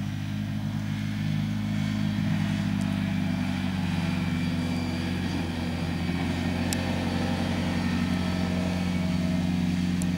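ATV (quad bike) engine running at a steady, even pitch. It grows louder over the first couple of seconds, then holds level.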